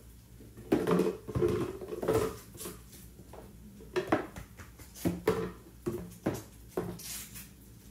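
Small plastic toy animals and a clear plastic jar tapping and clattering against plastic booster-seat trays, in irregular knocks about a second or less apart.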